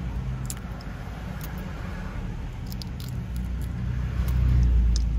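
Fingers peeling the shell off a boiled balut egg, with a few faint crackly clicks of breaking eggshell, over a steady low rumble inside a car that swells near the end.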